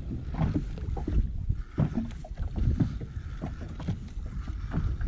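Wind buffeting the microphone, with water slapping and knocking against the side of an inflatable boat.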